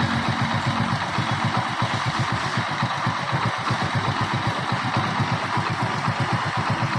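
Hero Splendor Pro motorcycle's single-cylinder four-stroke engine idling steadily with even firing pulses. The loose spark plug connector that caused the 'katar katar' rattle has been tightened, so the engine runs without it.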